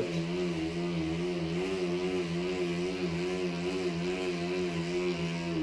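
Tacx Blue Matic turbo trainer with a mountain bike's rear tyre spinning on its roller under pedalling: a loud, steady hum with a slight waver in pitch and a hiss above it. The owner finds it so loud it drowns out the TV.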